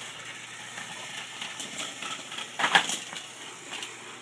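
Plastic toy train and track pieces clicking and clattering as they are handled on the carpet, with one louder rattle about two and a half seconds in.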